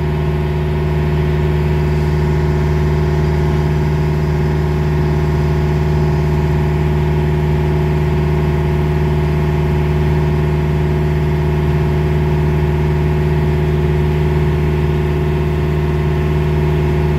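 Boat's engine running steadily under way: a loud, even drone with a strong low hum that does not change. The engine is not below deck, so it is heard openly.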